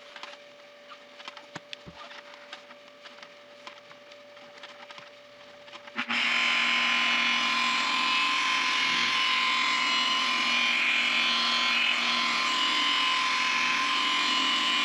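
A low steady hum with light ticks. About six seconds in, an electric rotary polisher with a foam buffing pad switches on and runs loud and steady with a whine, buffing polish and sealant onto a lacquered wooden vase.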